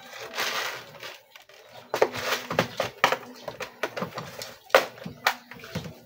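Clear plastic parts organizer box being handled and opened: a rustle, then a run of sharp clicks and knocks as the plastic lid and small metal parts inside knock about.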